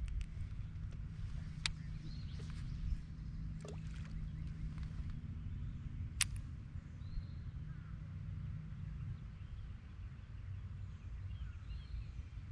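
Steady low rumble of ambient noise on a fishing kayak, with a few sharp clicks (the loudest about six seconds in) and a few faint bird chirps.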